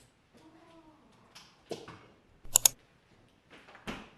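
Handling sounds of packing lunch: soft knocks and sharp clicks, with a crisp double click about two and a half seconds in, like a container lid or clasp snapping shut.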